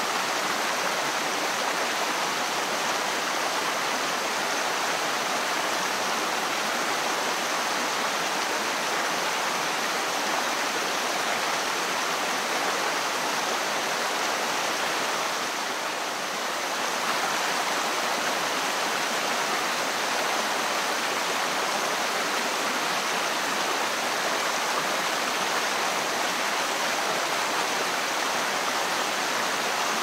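Waterfall cascading over rock into a pool, a steady, even rush of water that dips slightly for a moment about halfway through.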